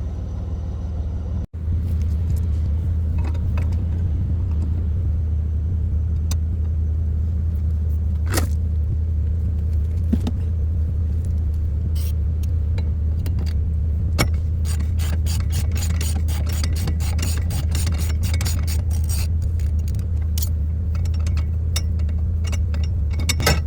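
Steady low hum with metal clicking that grows into rapid runs in the second half, as a ratchet works an inner tie rod removal tool to unscrew a car's inner tie rod.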